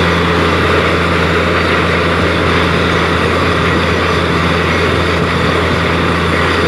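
Borewell drilling rig's engine running steadily: a constant low hum under a broad rushing noise, with no change in pitch or level.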